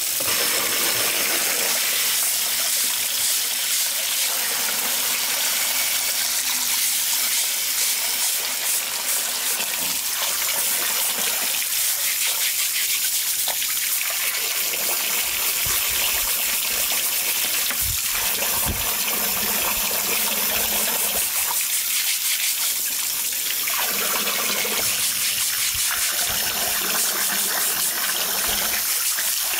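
Tap water gushing steadily into a large basin of water, with splashing as blocks of meju (dried fermented soybean bricks) are scrubbed with a plastic brush.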